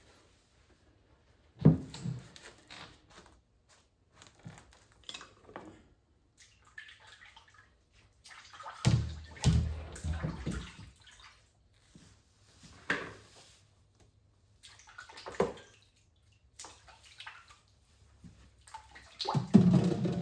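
Water splashing and sloshing in irregular bursts as fish are rinsed and handled in a basin, with a few sharp knocks. The loudest bursts come about two seconds in, between about nine and eleven seconds, and near the end.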